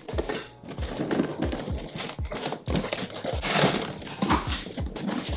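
Cardboard box being handled and pulled open, with scraping and crinkling of the cardboard, over background music with a steady low beat.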